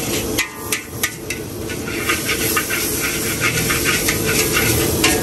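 Metal spatula scraping and clanking repeatedly against a wok as fried noodles are tossed, over a steady sizzling hiss from the hot wok.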